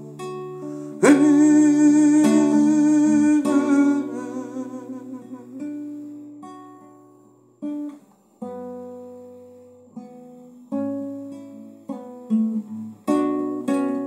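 Solo classical guitar played by hand: a loud strummed chord about a second in rings and slowly dies away, followed by sparse single plucked notes and chords that pick up again near the end.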